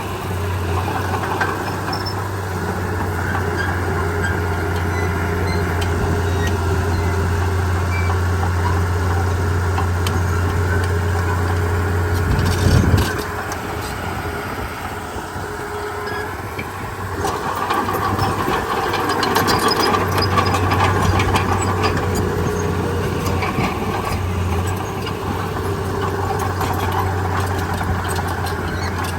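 Heavy diesel engine of earthmoving machinery running steadily. There is a short loud knock about 13 seconds in, and the engine gets louder a few seconds later.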